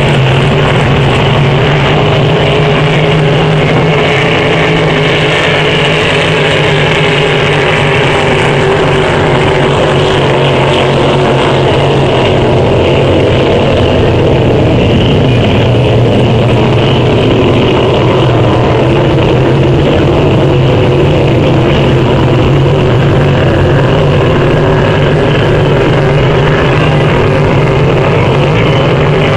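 Racing hydroplanes' engines running flat out on the course, a loud, steady drone with a strong low hum.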